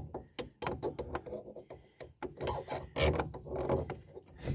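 Irregular metal scraping, rubbing and clicking as a part is forced through the new wheel hub bearing assembly.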